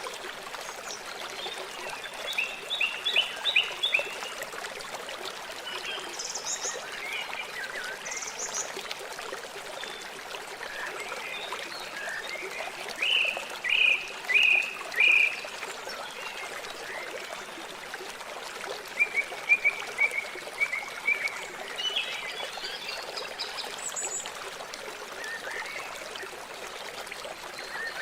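River flowing with a steady rush of water. Short runs of quick, repeated chirping calls, likely birds, rise above it several times, most strongly in the middle.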